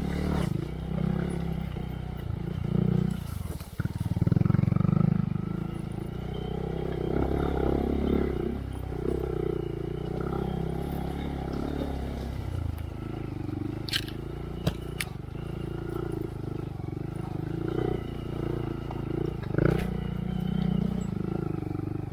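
2023 Honda Monkey's single-cylinder four-stroke engine through a Yoshimura RS3 slip-on exhaust with spark arrestor, revving up and easing off as the bike is ridden along a trail. A few sharp knocks come about two-thirds of the way through.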